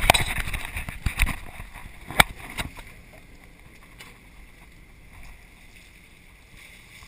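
Open-deck boat ambience at sea with a steady wash of noise. Several sharp knocks come in the first two to three seconds. It then settles to a quieter, even hiss.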